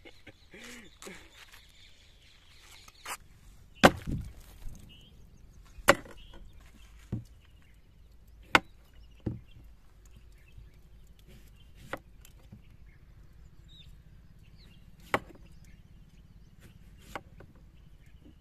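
Knife chopping through raw green mango and striking a wooden cutting board: about ten single sharp knocks, irregularly spaced a second or more apart, the loudest about four seconds in.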